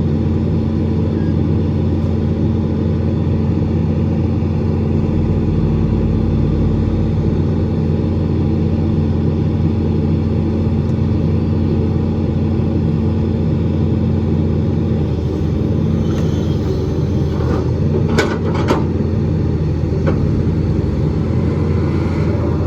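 Hitachi EX200 excavator's diesel engine running steadily with a deep hum, with a couple of sharp knocks about three quarters of the way through.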